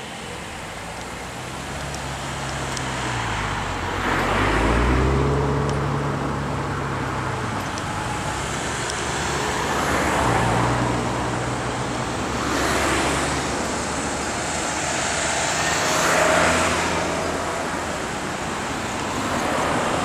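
Road traffic: cars and light vans driving past one after another over a level crossing, four passings that each swell and fade, with a low engine hum.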